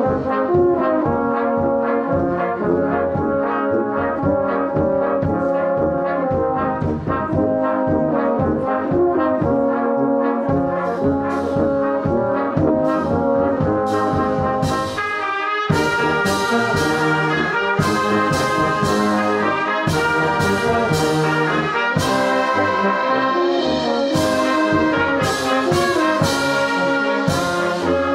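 Youth brass band of trumpets, trombones, horns and sousaphone playing a hymn in held chords, with drum strokes keeping the beat. About halfway through the playing dips briefly, then comes back in fuller, the strokes sharper.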